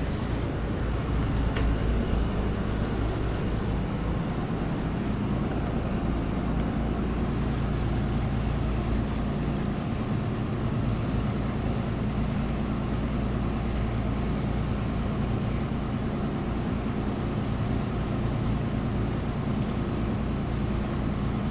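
Steady drone of a steel trawler's Cummins 6BT 5.9-litre inline-six diesel engines running under way at cruising revs.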